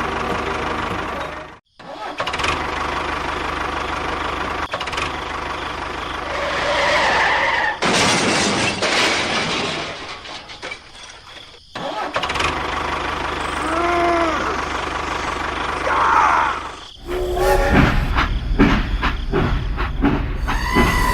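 Steady vehicle engine running, broken by a few abrupt cuts, with short rising-and-falling whistle-like tones in the second half.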